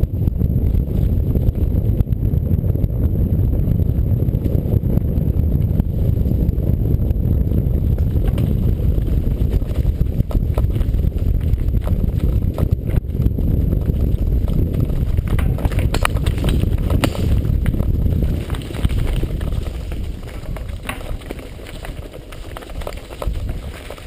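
Heavy low rumble and rattle from a moving action camera being jolted down a rough trail, with scattered knocks and clicks. The rumble eases about 18 seconds in.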